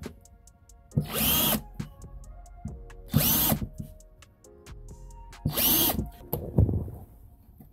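Cordless drill spinning a thin bit into oak through the screw holes of a chrome piano hinge, in three short bursts of about half a second each. The motor's pitch rises and then falls with each burst.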